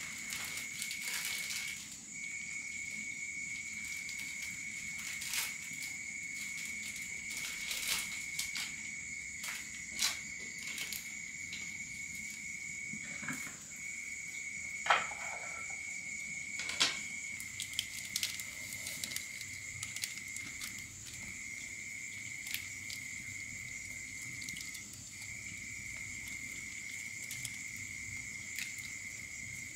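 Steady insect chorus: a continuous high-pitched trill with a second, higher trill above it. Scattered sharp clicks and knocks sound over it, the loudest about halfway through.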